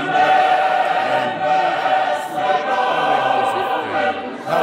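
Church congregation singing a hymn together as a choir, many voices holding long notes, with a brief break near the end.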